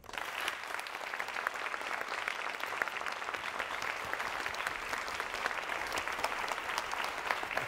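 Applause from many hands clapping. It breaks out suddenly and keeps going at an even level.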